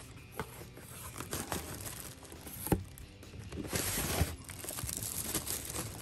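Packaging being handled and opened: crinkling and tearing with scattered clicks and knocks, and a longer rustling burst about four seconds in.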